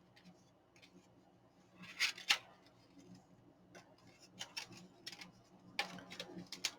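Quiet rustling and clicking of paper being folded and handled: scattered short crinkles, with the sharpest pair of clicks about two seconds in and more clusters of rustling in the second half.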